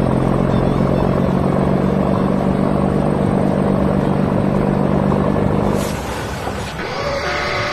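Heavy construction vehicle's engine running steadily, a low hum that stops about six seconds in, followed by a short whoosh and then a different, higher sound near the end.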